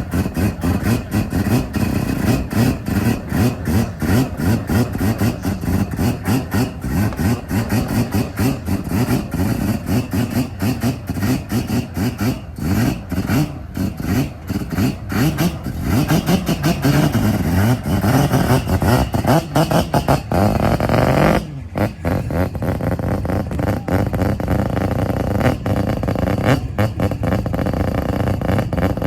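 A loud car engine running roughly with repeated revs, rising in pitch for a few seconds about two-thirds of the way through, then breaking off for a moment before carrying on.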